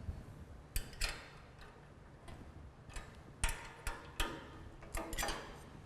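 Irregular light metal clicks and clinks, with a few slightly longer handling noises, as the blade guard is taken off a Grizzly G0555 bandsaw.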